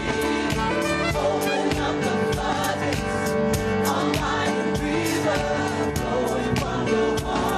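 Live band playing: sustained keyboard chords over a drum kit with a steady run of drum and cymbal hits, with singing.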